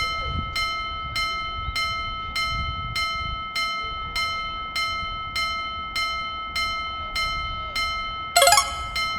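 Japanese railroad crossing alarm ringing steadily, a little under two strikes a second, with a short horn-like blast near the end.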